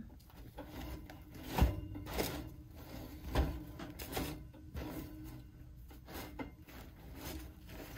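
A homemade loaf of bread being handled and pulled apart by hand on a wire cooling rack: soft crust crackling and several scattered knocks as the pieces are set against the rack, the loudest about one and a half and three and a half seconds in. Faint background music runs underneath.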